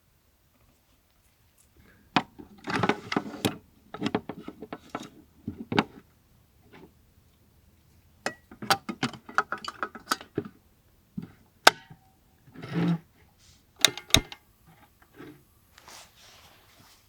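Objects being handled: irregular sharp clicks, clinks and knocks with rustling, in two busy stretches separated by a short pause.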